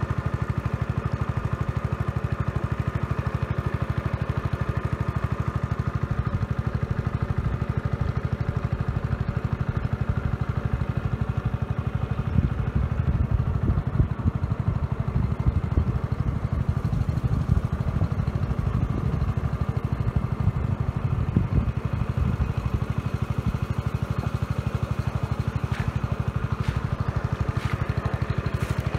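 An engine running steadily at an even speed, with a stretch of irregular knocks and jolts through the middle.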